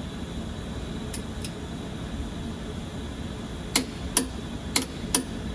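Two faint clicks, then four sharp, louder clicks about half a second apart near the end, over a steady background hum.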